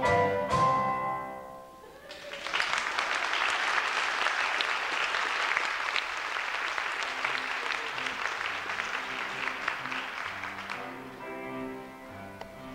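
A choir's final sung chord dies away in the first second or two, then an audience applauds for about eight seconds. Near the end, instrumental music starts up again.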